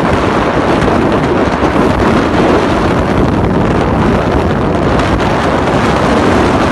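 Wind blasting across the microphone aboard a powerboat running at speed, over the steady rush of the boat's engine and hull on the water.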